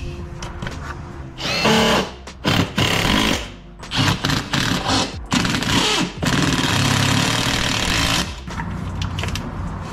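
Cordless power driver with a socket extension running in several short bursts from about a second and a half in, then in one longer run of about two seconds near the end, driving in the bolts that hold the golf cart's headlight.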